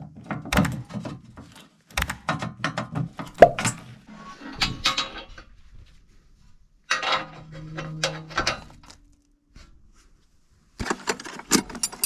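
Bursts of clattering metallic knocks and clanks, separated by short silences.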